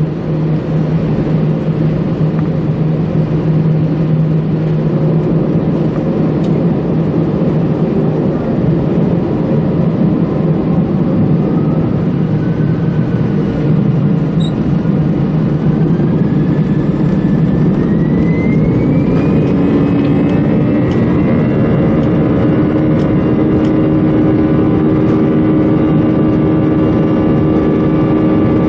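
Airbus A320 jet engines heard from inside the cabin over the wing. They run steadily at first, then spool up to takeoff thrust, with a whine rising in pitch from about ten seconds in. The pitch levels off about twenty seconds in into a steady drone during the takeoff roll.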